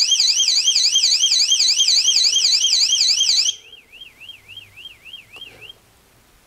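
Built-in siren of a TOUCAN floodlight security camera sounding, a loud, fast warbling electronic wail that sweeps up and down about four times a second. It drops off sharply about three and a half seconds in, and a much fainter copy of the warble continues for about two seconds before stopping.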